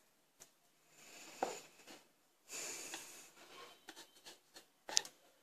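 Knife cutting rolled dough against a wooden board: scattered light taps, a short scraping stretch about two and a half seconds in, and a sharper knock near the end.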